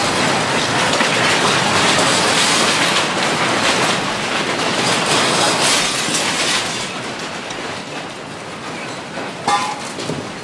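Earthquake shaking: a loud, continuous rumbling and rattling as buildings and loose fittings shake. It eases after about seven seconds, and there is one sharp knock near the end.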